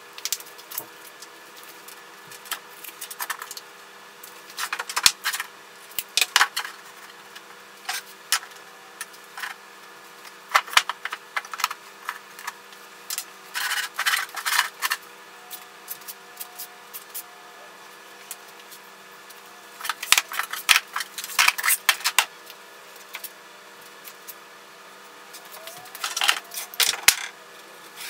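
White plastic storage bins being fitted and shifted inside a wooden bench frame, clattering and knocking against the wood in short bursts every few seconds, over a faint steady hum.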